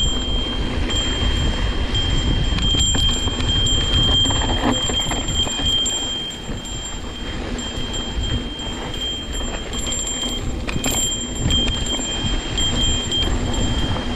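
Mountain bike riding along a dirt trail: low wind and trail rumble on the microphone, with a steady high-pitched freewheel buzz from the coasting rear hub that drops out briefly a couple of times.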